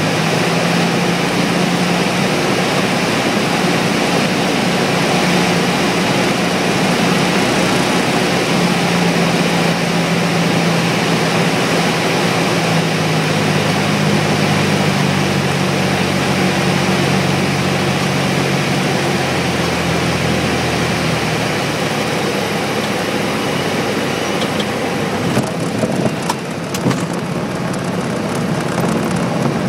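Cabin noise of a Beech Sport 150's four-cylinder piston engine and the rushing air on approach, a steady drone whose engine tone fades about two-thirds of the way through as power comes back for landing. A few knocks and rattles follow near the end as the plane is on the runway.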